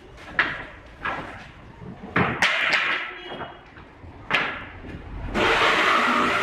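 Loose pallet-wood boards knocking and clattering against each other as they are pulled from a stacked pile: about six separate sharp wooden knocks. About five seconds in, steady background music starts.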